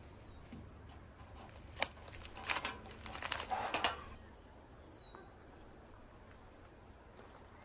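Roasted chicken being torn apart by hand: crisp skin and meat crackling and tearing in a run of sharp crackles from about two to four seconds in. A single short bird chirp follows about five seconds in, over faint outdoor background.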